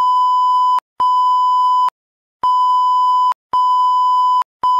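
Censor bleep: a loud steady one-pitch beep, sounded five times in a row, each about a second long with short gaps between, masking swear words.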